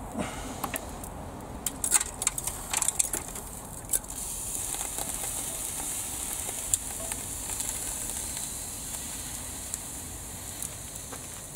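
Clicks and knocks of the charred plastic lid of a burned-out air fryer being handled and swung open. After that comes a steady high hiss with scattered faint ticks.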